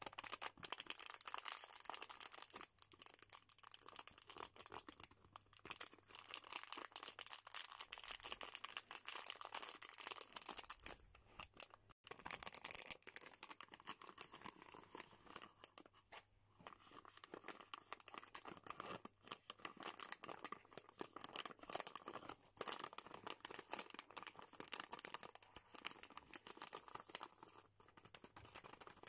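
Fingers crinkling, rubbing and scratching glossy plastic snack packaging in close-up: first a snack-bar wrapper, then a fruit-snack pouch. It is a dense, crisp crackling, with short pauses about twelve and sixteen seconds in.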